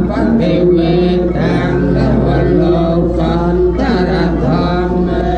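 A voice chanting a funeral chant in long, drawn-out held notes over a steady low hum.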